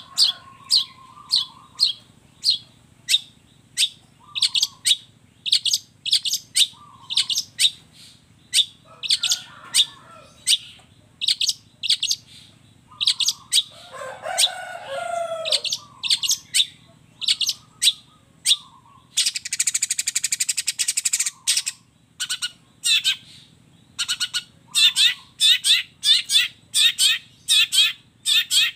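Long-tailed shrike (cendet) singing: a fast series of sharp, high chips, broken by a lower warbled phrase about halfway through and a harsh buzzing rattle lasting about two seconds about two-thirds through.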